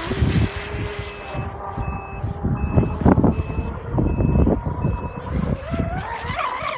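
A high electronic beep repeating about every three-quarters of a second, around eight times. It sounds over wind rumble and the whine of an RC boat's brushless electric motor, which climbs in pitch near the end as the motor spools up.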